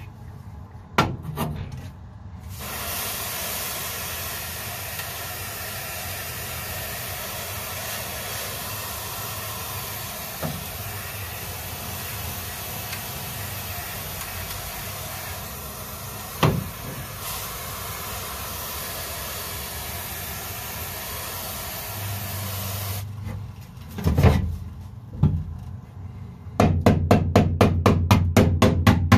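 Upside-down can of compressed air spraying its freezing liquid in a long steady hiss for about twenty seconds onto the asphalt sound-deadening mat of a car's floor pan. A few single knocks come in between. Near the end a ball-peen hammer taps quickly and evenly on the frozen deadening over the sheet-metal floor to break it up.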